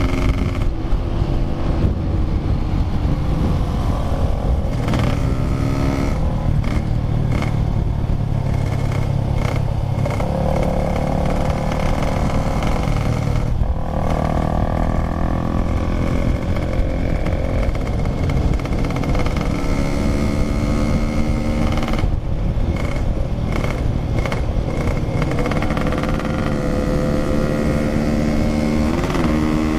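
Yamaha RX-King's 135cc single-cylinder two-stroke engine running under way, its pitch rising and falling as the throttle opens and closes.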